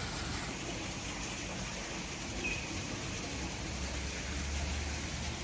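Steady outdoor background noise, an even hiss, with a low rumble from about four seconds in.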